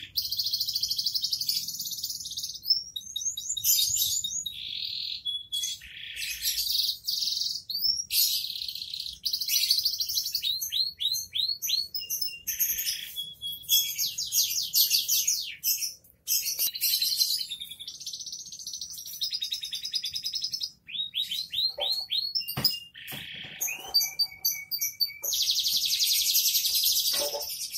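Domestic canary in full, non-stop song: long rolling trills, fast repeated sweeping notes and bright whistles, broken only by brief pauses.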